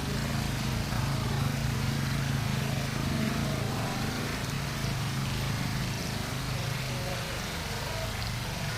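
A small engine running steadily: a constant low hum under a haze of noise, fading about seven seconds in.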